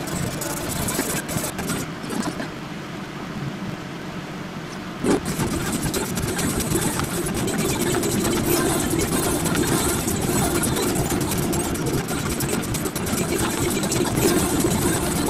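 Steady mechanical hum with one sharp knock about five seconds in, after which the hum runs a little louder.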